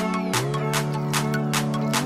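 Background music: an electronic track with a steady beat of about four hits a second over held synth chords, which change about a third of a second in.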